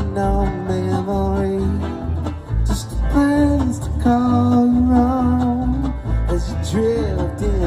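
Live acoustic bluegrass band: strummed acoustic guitars and an upright bass walking a steady beat, under long held wordless vocal notes.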